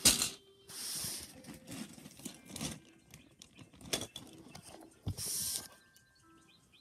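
Handling noises: an uneven series of rustles and plastic clacks, as toys and their packaging are moved about. A few faint short tones sound near the end.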